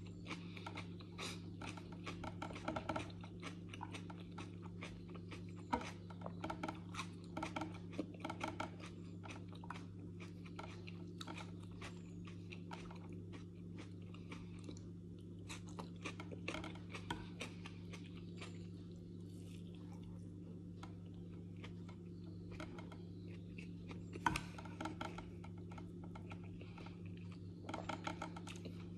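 Close-up chewing and crunching of salad vegetables, coming in bursts with quieter pauses between, over a steady low hum.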